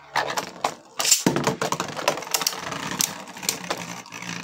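Beyblade Speed Storm spinning tops in a plastic stadium: a second top is ripped from its launcher about a second in, then a rapid run of plastic-and-metal clicking as the two tops spin, clash and skid against each other and the stadium floor.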